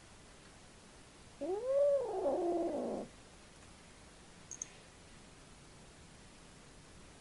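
A cat's single drawn-out yowl at an unfamiliar cat. It lasts under two seconds, rises then falls in pitch, and ends lower and rougher.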